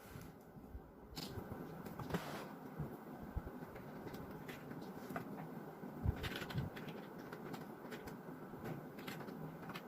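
Typing on a computer keyboard: irregular key clicks over a steady hiss that comes up about a second in.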